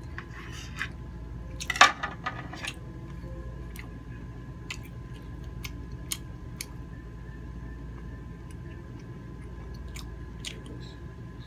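Knife and fork cutting grilled squid on a ceramic plate, with a brief clatter about two seconds in, the loudest sound. Then close-up chewing of the squid, with scattered sharp wet mouth clicks.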